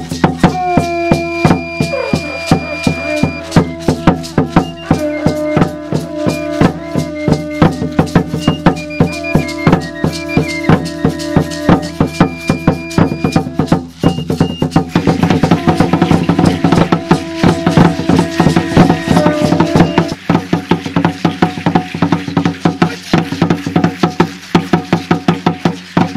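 Music with a steady beat of sharp percussion strokes under a melody of held notes; the sound grows fuller about halfway through.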